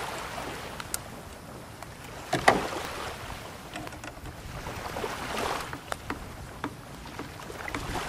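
Scattered small clicks and taps of a screwdriver and pliers handling fittings while a paddle keeper is fitted to a kayak's leaning post, with a few brief rushing swells and one sharper knock about two and a half seconds in.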